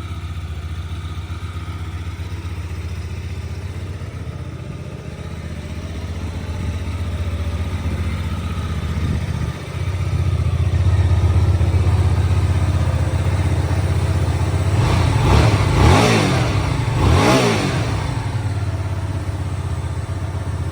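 Hyosung GV250's 250 cc V-twin engine running steadily, getting louder about halfway through. Near the end the engine speed rises and falls twice, then the sound cuts off suddenly.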